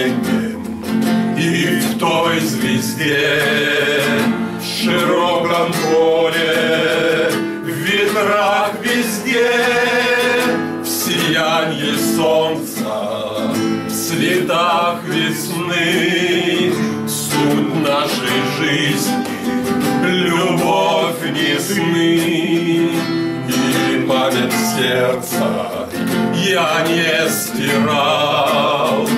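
A man singing a Russian song with vibrato, accompanied by an acoustic guitar played with a strumming hand.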